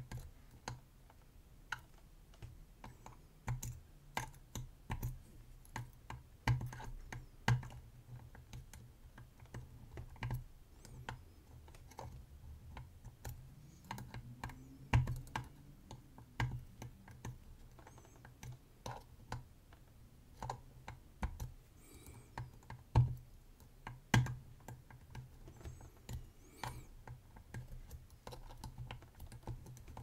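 Faint, irregular small clicks and taps of a pick working the tapered pins of a Chicago Ace 4900 series tubular lock one at a time under tension, as it is single-pin picked. A few sharper clicks stand out about halfway through and again about two-thirds through.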